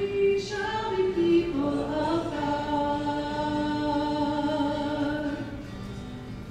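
Hymn singing: a sung melody that closes on one long held note, dying away near the end.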